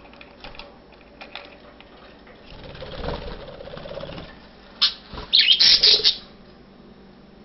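Pet budgies fluttering in their cage: a stretch of wing flapping from about two and a half seconds in, then louder bursts of flapping and chirping around five to six seconds in.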